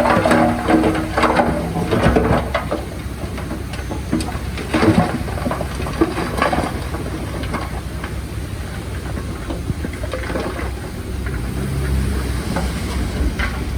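Heavy diesel earthmoving machinery running, with a string of sharp clanks and knocks over the first few seconds, then a steadier low rumble.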